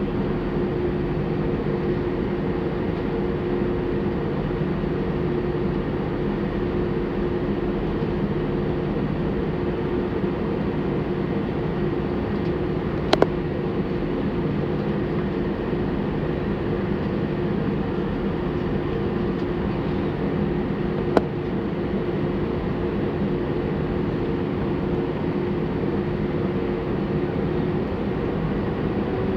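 Airbus A320 jet engines running steadily at low power: a constant, even hum with a few held tones underneath, and no build-up in power. Two sharp clicks cut through it, one about halfway through and one later.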